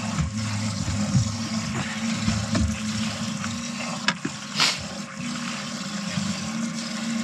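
Outboard motor running steadily as the boat trolls, a low even drone with the wash of water along the hull. A short burst of hiss about four and a half seconds in.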